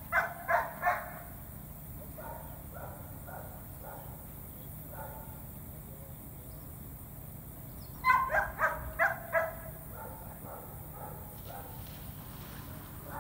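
A dog barking in quick runs: three sharp barks right at the start, fainter barks scattered after, and a louder run of about five barks around eight seconds in.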